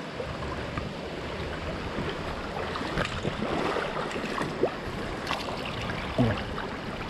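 Shallow brook running over rocks in a small riffle, a steady rushing burble, with a few light clicks of handling and one short louder sound about six seconds in.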